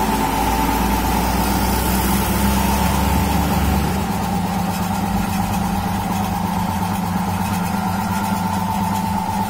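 A 100-litre belt-driven Sonyo air compressor running steadily: its electric motor drives the pump by V-belt, with an even mechanical hum and a steady high whine.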